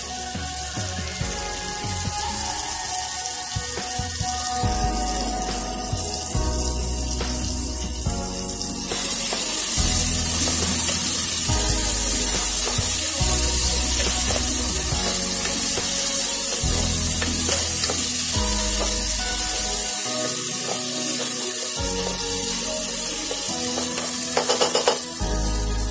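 Chopped tomatoes, onions and dried red chillies sizzling in hot oil as they are stirred, the sizzle getting louder about nine seconds in, with a few quick taps near the end. Background music with a bass line plays under it.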